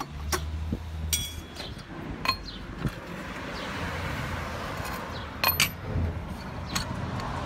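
Metal scooter transmission parts clinking and knocking as a CVT variator is taken apart by hand: scattered sharp clinks, one ringing briefly about a second in and two loud ones about five and a half seconds in.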